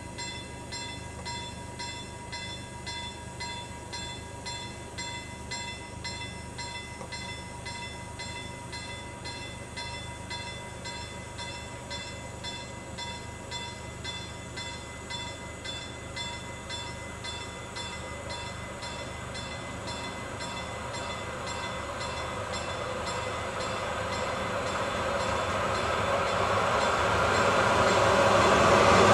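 Level crossing warning bell ringing with fast, even strokes as a freight train hauled by an Sr1 electric locomotive approaches. The train's rumble grows steadily louder over the last several seconds as it comes alongside.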